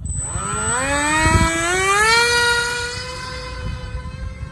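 Small foam RC model jet's electric motor and pusher propeller throttling up for its takeoff run: a whine that rises in pitch for about two seconds, then holds steady and grows a little fainter as the plane moves away.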